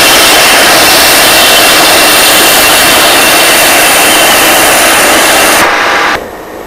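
General Electric J79 turbojets of RF-4E Phantoms running on the ground: a loud, steady jet rush with a thin high whine. The sound drops sharply about six seconds in.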